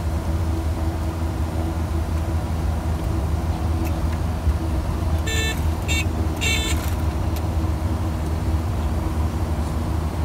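Steady low drone of a Dornier twin-turboprop's engines heard inside the cabin. Around the middle come three short, high-pitched electronic beeps.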